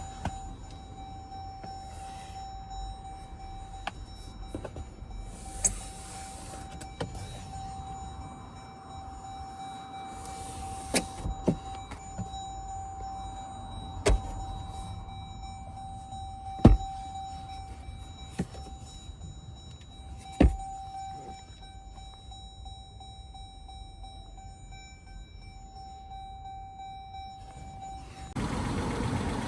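Inside a car: a faint steady high tone with scattered sharp clicks and knocks, then about 28 seconds in the Dodge Durango's engine starts and settles into an idle.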